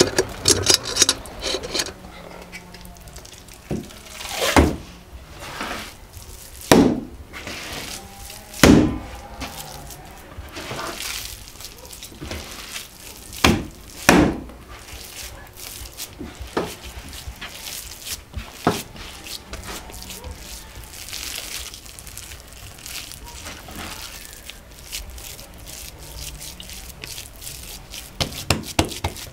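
A lump of minced pork being slapped down onto a wooden cutting board again and again: about seven loud thuds spaced unevenly, a second to several seconds apart, with softer squelching and handling of the meat in between as it is worked into cutlet mince.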